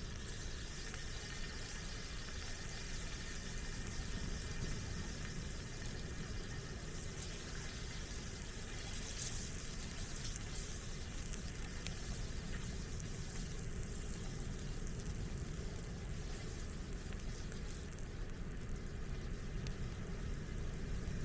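Food sizzling steadily in a pan over a campfire, with a low rumble underneath and faint scattered crackles.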